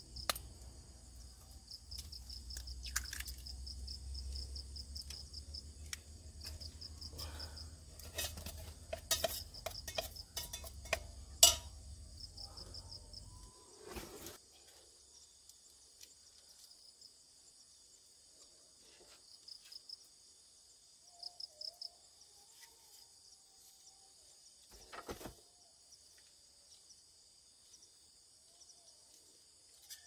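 Forest insects chirping in a steady, fast-pulsing high trill. Over it, for the first half, a low steady rumble runs and then cuts off suddenly. Scattered clattering knocks come around the middle, with one sharp knock, the loudest sound, about eleven seconds in.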